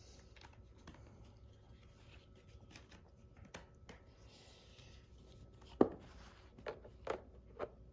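Plastic toy train track pieces being handled and fitted together: faint rubbing, then a few sharp plastic clicks, the loudest about six seconds in and three smaller ones close after it.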